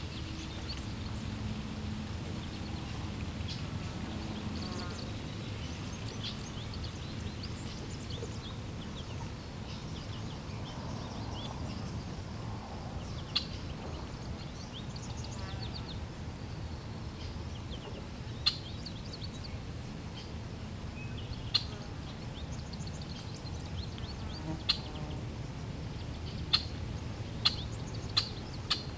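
Steady low rush of flowing water with birds chirping throughout. Sharp clicks, the loudest sounds, come several times in the second half, closer together near the end.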